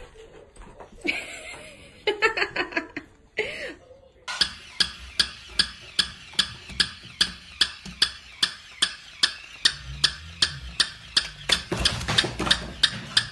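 A plush battery-powered walking toy dog clicking evenly as its motor drives its legs, about three clicks a second, starting about four seconds in. Before that, a few short voice sounds.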